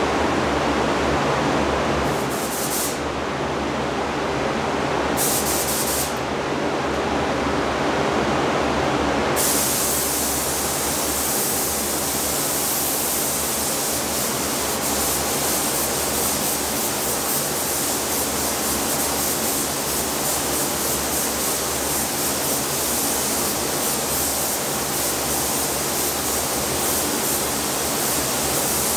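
Compressed-air gravity-feed spray gun hissing as it sprays paint, in two short bursts about two and five seconds in, then held almost continuously from about nine seconds on. Under it, the steady rush of the paint booth's ventilation.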